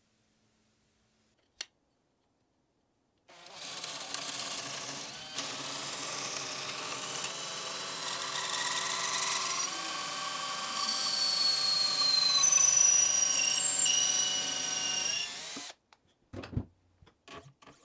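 Power drill spinning a square wooden stick through a chisel-blade dowel jig, the chisel shaving it into a round dowel. The sound runs about twelve seconds, rising in pitch and getting louder in its second half, then stops suddenly, followed by a few short knocks.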